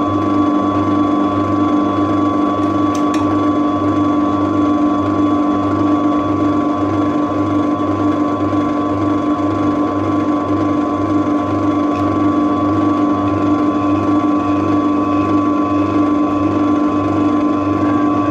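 Pillar drill running steadily, a constant hum with a low throb about twice a second, while it drills 3 mm pilot holes through a knife blade's steel tang.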